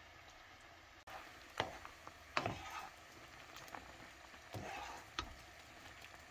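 Tteokbokki simmering in thick red sauce in a pan: a soft, steady bubbling hiss, then from about a second in a wooden spoon stirs it, with scraping and several sharp knocks of the spoon against the pan.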